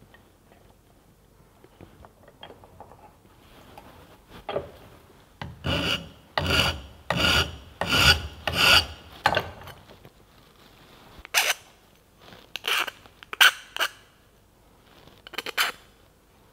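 Hand file scraping across the edge of an aluminium sheet part clamped in a bench vise: a quick run of about seven strokes, then a handful of more widely spaced strokes.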